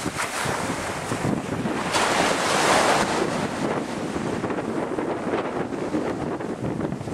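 Wind buffeting the microphone over surf washing onto a sandy beach, with a louder gust about two to three seconds in.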